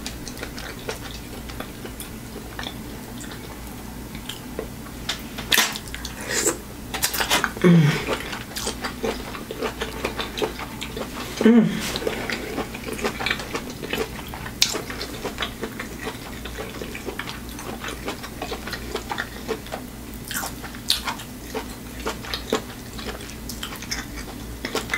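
Close-miked eating: chewing and lip smacking of buttery shrimp and lobster, with scattered small wet clicks from fingers picking at the food. Twice a short low hum of enjoyment breaks in, about eight and about eleven and a half seconds in.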